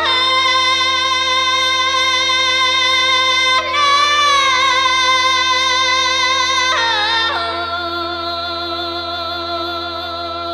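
Music with a voice singing long, held notes with vibrato, changing pitch twice.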